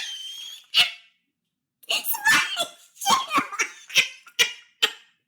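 A person laughing in a string of short bursts, starting about two seconds in and running until near the end.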